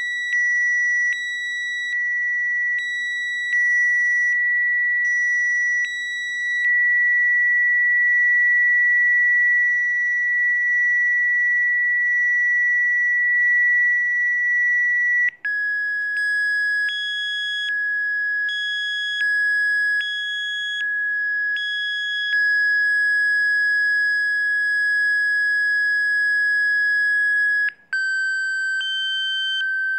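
Electronic Rife-frequency sine tones: a steady high tone near 2 kHz that steps down in pitch twice, about halfway through and near the end. Higher tones over it switch on and off about once a second, giving a beeping pulse.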